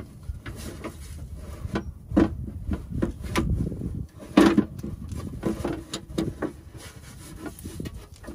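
Oil pan being worked out from under the engine: irregular clunks and scraping of the pan against the surrounding parts, with the loudest knocks about two seconds and four and a half seconds in.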